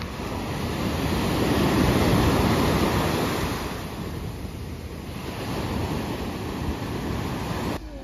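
Black Sea surf breaking and washing up a sandy beach, swelling loudest as a wave comes in about two seconds in, then easing, with wind buffeting the microphone.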